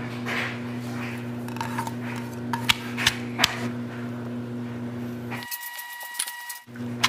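Stone pestle pounding dried chilies and garlic in a stone mortar: irregular sharp knocks over a steady low hum.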